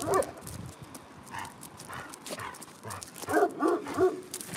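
Dogs playing and vocalising: a string of short yips and whines, with several quick ones close together past the middle.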